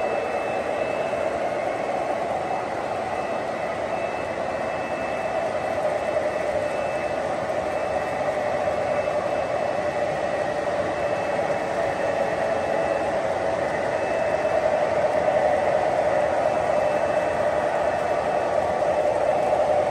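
Model freight train rolling past on its track: a steady rolling rumble of many wheels with a faint high whine, a little louder near the end.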